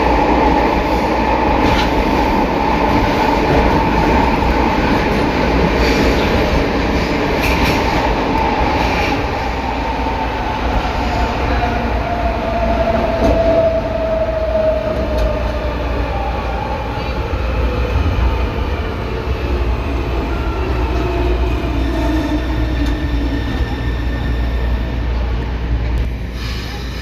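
Metro train's traction motor and inverter whine, heard inside the car, gliding down in pitch as the train slows, over a steady low growl from the reduction gearbox, which is probably short of lubrication.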